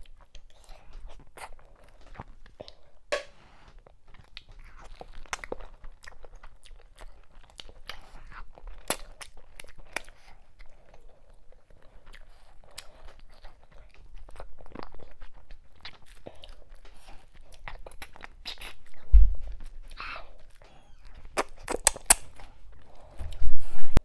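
Close-miked eating by hand: wet chewing, lip smacking and sticky mouth clicks as fufu and ogbono soup are eaten. Dull low thumps come twice near the end; these are the loudest sounds.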